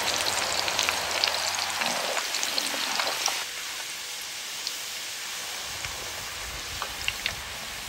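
Hot oil sizzling and crackling in a wok as Hong Kong pan-fry noodles deep-fry crisp. About three and a half seconds in the sizzle drops to a quieter hiss with a few crackles as the noodles are lifted from the oil.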